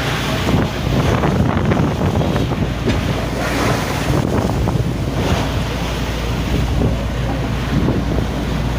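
Heavy wind battering the microphone over rough, breaking sea, with louder surges about three and a half and five seconds in.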